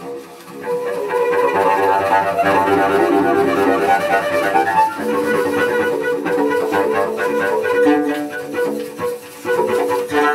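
Cello improvised with the bow, a busy stream of notes that swells in about half a second in, with brief lulls around the middle and near the end.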